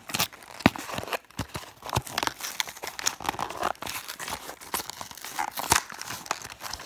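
A cardboard toy box being opened by hand and a diecast model bus pulled from its packaging: continuous rustling and tearing of card and packaging, broken by many sharp clicks and knocks.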